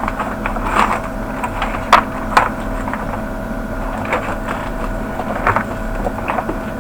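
Small clicks and taps of electronic parts and LEDs being handled on a workbench, the sharpest two a little after two seconds in, over a steady electrical hum.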